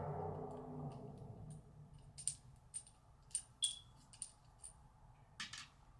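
Light clicks and clinks of small metal parts as a red dot sight and its mount are handled and fitted onto an AR-style rifle, about eight separate clicks. They follow a rustling sound that fades out in the first second or so.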